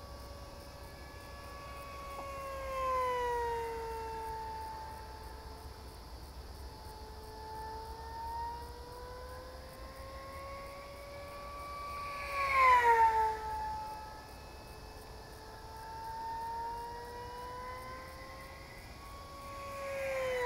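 Durafly EFX Racer electric model plane's motor and propeller whining as it circles, the pitch sliding slowly up and down. About twelve seconds in it passes close, loudest, with a sharp drop in pitch, and it makes another close pass with a falling pitch near the end.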